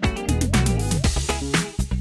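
Upbeat funk-style background music with a steady beat and some sliding notes.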